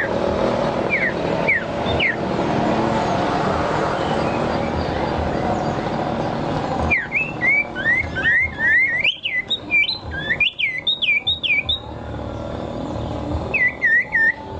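A steady low rumbling noise with a few short, sliding bird chirps above it. About seven seconds in, the rumble drops away and a songbird sings a fast run of whistled notes that swoop up and down, then a short phrase of notes near the end.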